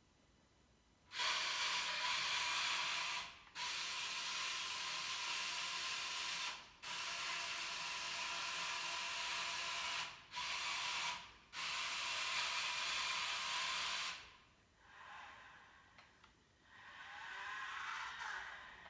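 Geared electric motors and servos of a homemade humanoid robot whirring as it moves. The whir comes in long runs broken by several short pauses, then turns to quieter, wavering servo whines near the end.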